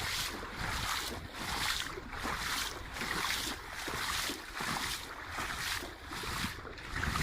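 Footsteps trudging through soft river sand, one step about every three quarters of a second, with wind buffeting the microphone.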